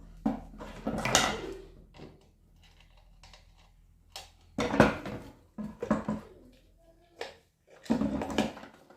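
Hard parts knocked and clinked together as they are handled, in irregular clatters and scrapes. A low steady hum underneath fades out about two seconds in.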